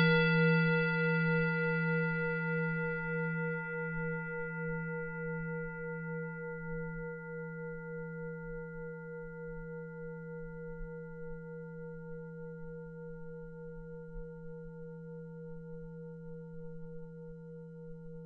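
Singing bowl struck once, its low hum and higher overtones ringing on with a slow wavering pulse as they gradually fade.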